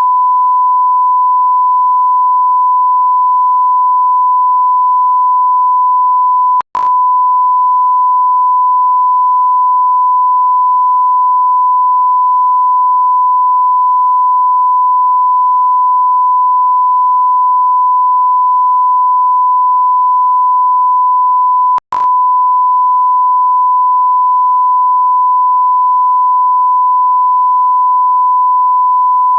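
Continuous electronic beep tone: a single pure, steady pitch held without change. It cuts out for an instant with a click about seven seconds in and again about fifteen seconds later.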